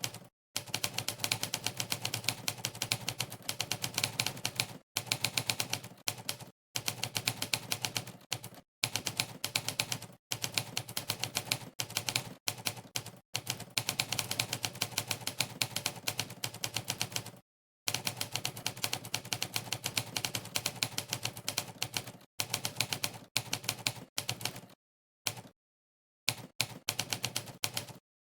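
Fast touch-typing on a Rapoo computer keyboard: a rapid, dense stream of key clicks, broken by brief pauses every few seconds.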